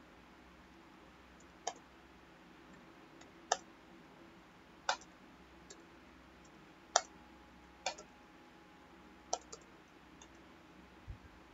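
Sharp, single clicks of a computer mouse and keyboard, about eight of them spaced irregularly a second or so apart, over faint room hiss. One near the end carries a low thud.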